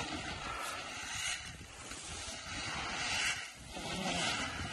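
Feed grain poured from sacks and a bucket and scattered onto snow: a rushing hiss that swells several times, over wind noise on the microphone.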